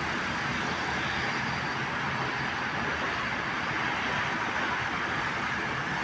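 Steady wash of city road traffic heard from high above a busy multi-lane avenue: a constant hiss of many cars' tyres and engines blended together, with no single vehicle standing out.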